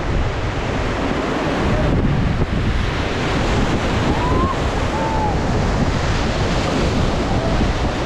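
Rushing whitewater churning around a paddled raft, with heavy wind buffeting the microphone.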